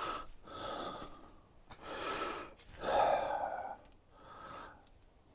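A person breathing close to the microphone: about five soft breaths, roughly one a second.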